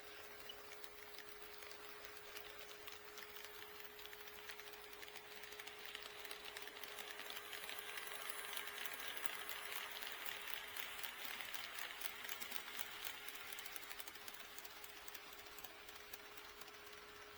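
HO scale model train running past on KATO Unitrack: a fast patter of fine clicks from the wheels and mechanism that grows louder to a peak midway and then fades as it moves away.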